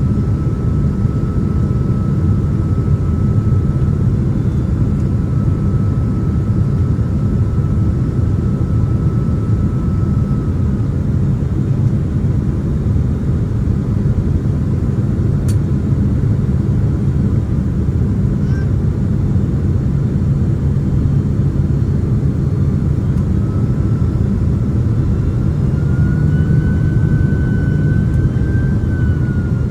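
Steady low rumble of a Boeing 767-300ER's jet engines and airflow, heard from inside the passenger cabin, with a faint thin whine that fades out partway through and comes back, rising a little, near the end.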